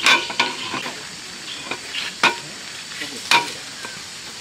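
Several sharp knocks or clacks at irregular intervals, about five in four seconds, over a steady background hiss.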